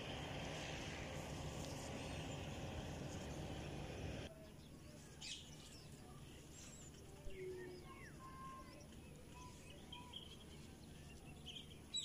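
A rushing hiss, like wind or handling noise, cuts off suddenly about four seconds in. After that comes quiet outdoor ambience with scattered small bird chirps and short whistled calls.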